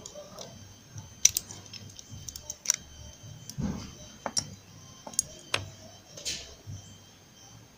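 Irregular sharp clicks and scrapes of a small screwdriver prying the white plastic shell off a USB-A phone charger plug, with a duller knock just before the middle, as the plug is taken apart to check its wires.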